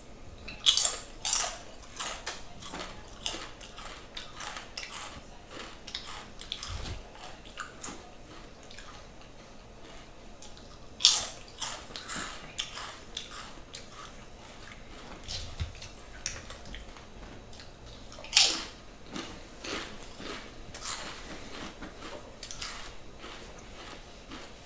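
A person biting into a giant vegan turkey club sandwich and chewing it, heard close up. Three loud crunchy bites come about a second in, about 11 seconds in and about 18 seconds in, each followed by a run of smaller crunching and smacking chews.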